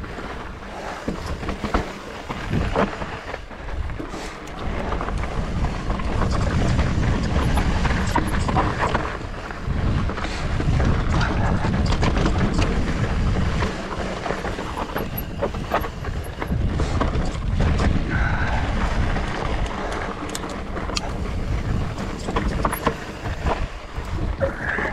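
Wind buffeting the camera microphone of a mountain bike on the move, over the crunch and rattle of tyres on a dirt trail, with scattered clicks and knocks from the bike.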